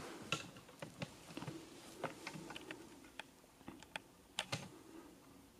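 Faint, irregular small clicks and taps from hands handling a PCIe USB 3.0 expansion card.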